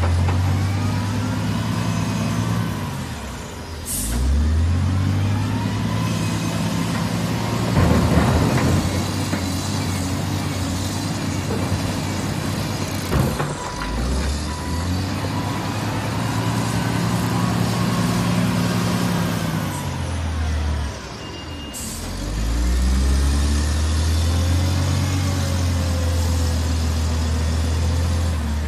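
Wheel loader's diesel engine working through a loading cycle, revving up and down again and again as the bucket digs, lifts and dumps; its pitch drops three times and climbs again. A couple of short hisses of air come through, a few seconds in and again past the middle.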